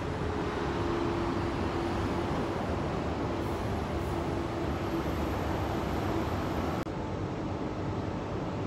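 Steady outdoor background noise with a faint low hum. About two-thirds of the way in it cuts abruptly to a duller, slightly quieter noise.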